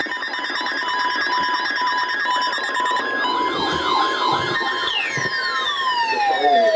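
Several emergency-vehicle sirens sounding at once, rising and falling in pitch about three times a second. About five seconds in, one siren winds down, its pitch falling steadily.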